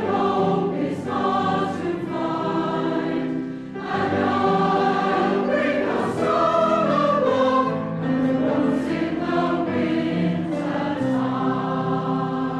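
A choir singing a slow song with long, sustained notes.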